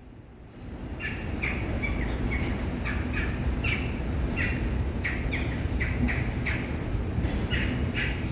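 Birds squawking repeatedly, short harsh calls about two a second, starting about a second in, over a steady low rumble from the DDB1 diesel train's engine.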